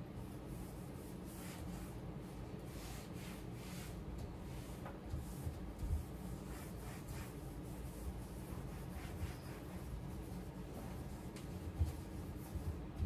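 Cloth wiping over kitchen cabinet doors in soft repeated rubbing strokes, over a steady low hum, with a few low thumps.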